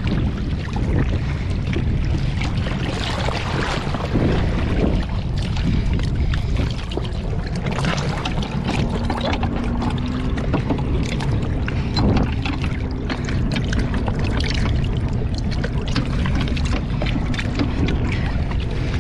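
Water sloshing and splashing right at the microphone, with wind rumbling on it, as hands work a shackle and strap at the waterline; a faint steady hum runs through the middle.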